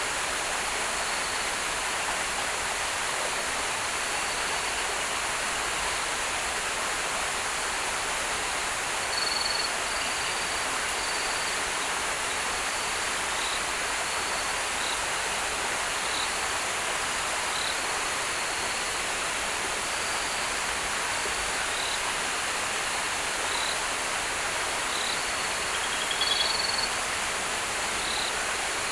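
Steady rush of river water, with short high chirps repeating irregularly every second or two.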